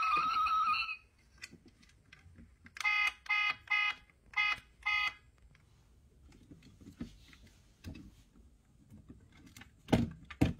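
Electronic beeps from a diecast Pagani Huayra model car's sound unit: a short tone at the start, then five quick beeps in a row about three seconds in. Small plastic clicks follow, and two thumps near the end as the car's panels are pressed.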